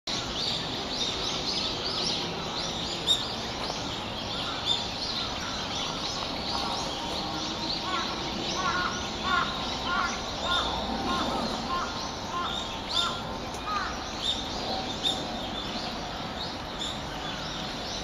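Woodland birds calling, many short chirps overlapping all through, with a run of about eight evenly spaced lower calls in the middle.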